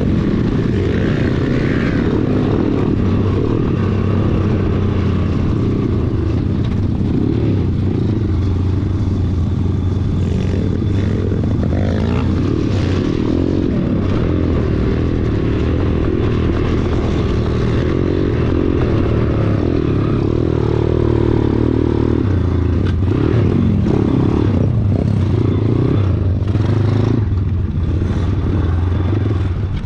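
Four-stroke pit bike engine running steadily as the bike is ridden along a rough dirt track, heard close up from the rider's own machine.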